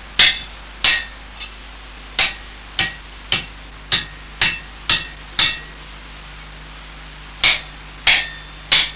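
Blacksmith's hand hammer striking a piece of metal on an anvil, each blow ringing briefly. The blows come about two a second, then stop for about two seconds before three more near the end.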